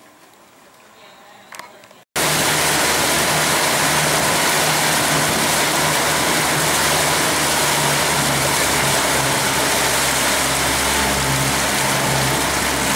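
Yamaha 90 outboard motor driving a boat at speed: a steady engine hum under a loud, even rush of wind and water. It cuts in suddenly about two seconds in, after a quiet start.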